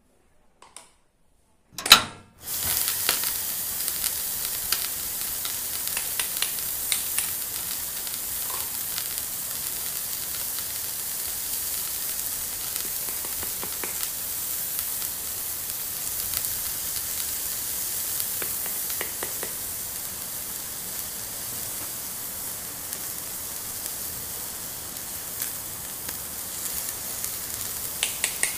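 A frying sizzle sound effect: a steady hiss like food in a hot pan that switches on just after a sharp click about two seconds in. Small plastic clicks and taps from the toy pans and pieces being handled are heard over it.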